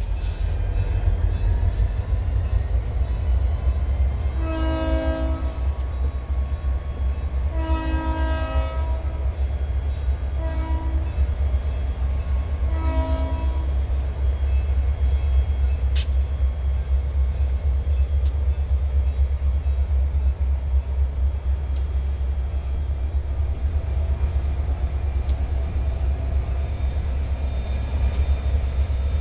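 EMD GP40 diesel locomotives passing close with a heavy, steady low rumble, while the lead unit's multi-note air horn sounds the grade-crossing signal: two long blasts, a short one and a final long one in the first half.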